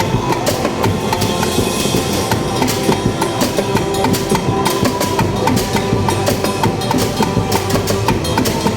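A drum band playing a fast, dense, steady beat of many rapid drum strikes, with short pitched notes ringing over it.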